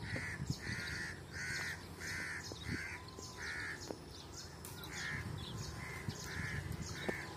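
A crow cawing over and over, about ten short caws in quick series with a brief pause midway.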